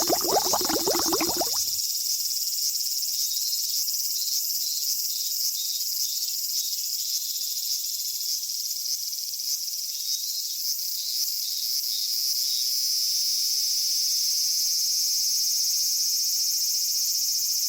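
Summer insect sound effect: high-pitched chirring of insects, with repeated chirps about twice a second that later blend into a steady drone. A louder, lower sound plays for the first second or two and cuts off suddenly.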